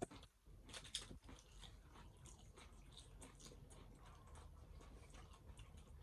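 Faint chewing of a crunchy hard-shell taco: a run of small, irregular crunches, with sharper bites at the start and about a second in.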